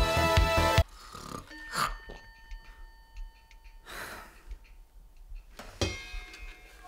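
Background music that cuts off suddenly about a second in, then a man breathing out heavily three times, with a few faint ticks in between.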